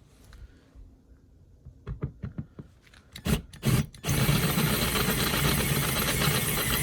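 A few handling clicks, then a power drill starts suddenly about four seconds in and runs steadily, drilling out an old rivnut with a 5/16-inch bit.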